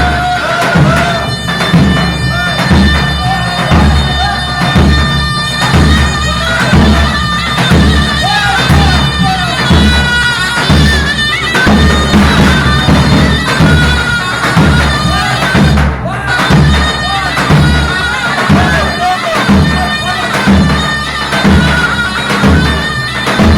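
Halay dance music: a reedy, nasal wind melody, in the manner of a zurna, played over a steady bass-drum beat.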